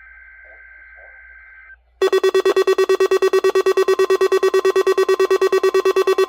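A weather radio gives a short screech of digital alert-header data tones. About two seconds in, the loud NOAA Weather Radio warning alarm starts: a harsh, buzzy tone pulsing about eight times a second.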